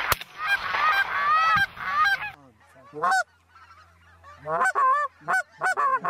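A flock of Canada geese honking, many calls overlapping. About two seconds in the sound cuts off abruptly, and after a quieter stretch a few loud single honks come in quick succession near the end.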